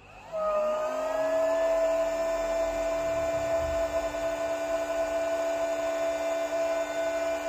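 Small electric airbed pump switching on a moment in, its motor whine rising quickly to a steady pitch and running on as it pumps air into an inflatable rubber boat.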